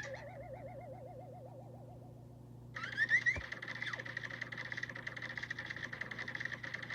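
Cartoon sound effects: a wobbling, warbling tone that fades away, then after a short gap a quick rising whistle glide that turns into a steady high, rapidly fluttering buzz.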